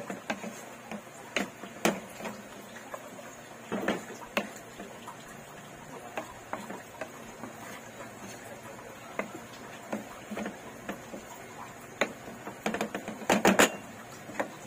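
Wooden spatula knocking and scraping against a non-stick wok while squid rings and vegetables are stir-fried, over a low steady sizzle. The knocks come irregularly, with a quick run of the loudest ones near the end.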